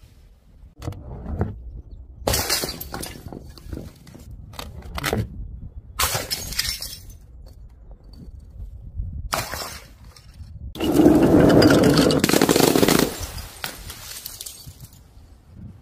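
Glass jars and bottles, some filled with coloured powder, smashing on paving stones one after another: about six separate crashes with shards clinking, the loudest and longest lasting about two seconds, about eleven seconds in.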